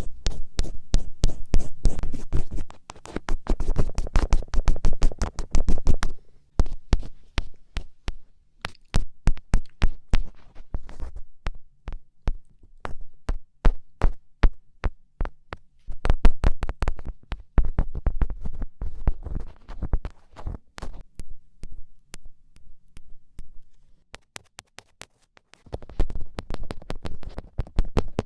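Rapid fingertip taps and pokes against the camera, each a sharp click, many a second. Some land as heavier thumps, and the runs stop briefly about six seconds in and again near the end.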